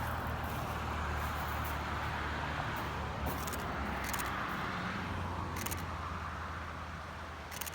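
Road noise and engine hum of a moving vehicle, heard from inside the cab: a steady low drone under an even rushing noise, with a few faint high ticks.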